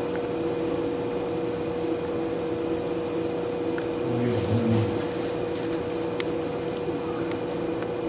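A steady mechanical hum with a constant mid-pitched tone, briefly swelling with a low rumble about halfway through.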